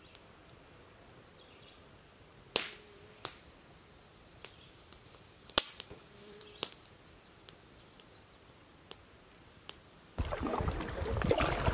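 Sharp, single cracks a second or more apart, like a whip, from a fly line snapping as it is false-cast; the loudest come at about two and a half, three and five and a half seconds in. Near the end, wind starts rumbling on the microphone.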